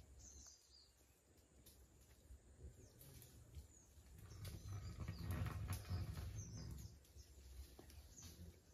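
Quiet forest with a few faint bird chirps. A low rumble swells up and fades away between about four and seven seconds in.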